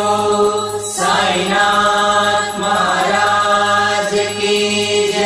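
Devotional music: a mantra chanted in song over a steady low drone.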